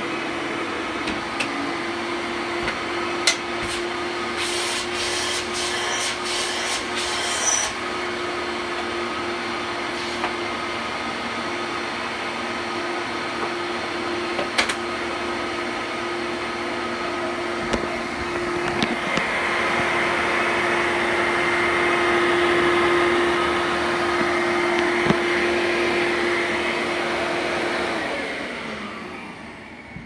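Fantom Thunder upright vacuum cleaner with a dual-stage Lamb motor running on carpet: a steady motor whine with rushing air and occasional clicks, louder for several seconds past the middle. Near the end the motor winds down in pitch and fades.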